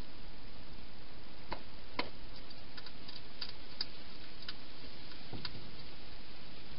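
Hedgehog eating from a bowl: a series of short, sharp, irregular clicks and crunches over a steady hiss.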